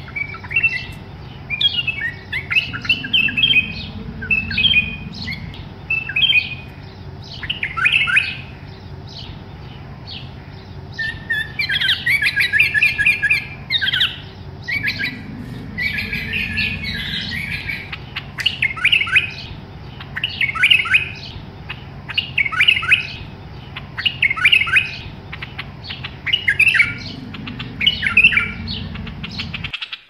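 Bulbul calling: short, bubbly chirping phrases repeated about every one to two seconds, over a low rumble. The sound cuts off suddenly near the end.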